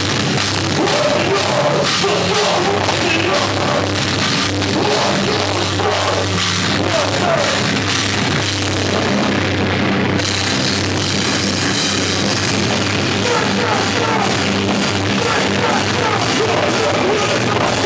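A heavy metal/hardcore band playing live: distorted electric guitars, bass guitar and a drum kit, with a shouted vocal. The high cymbal wash drops away briefly and comes back in about ten seconds in.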